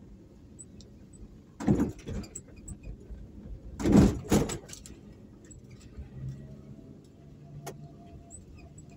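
Riding along a road in a moving vehicle: two loud bursts of noise about two and four seconds in, then a steady low engine hum, with a single sharp click near the end.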